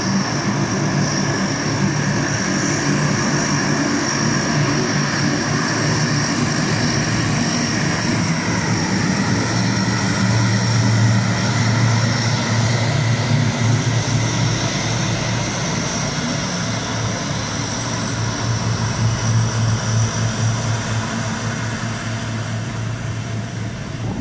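A C-130 Hercules's four turboprop engines running as it taxis past: a steady propeller drone with a high whine over it, easing off a little near the end.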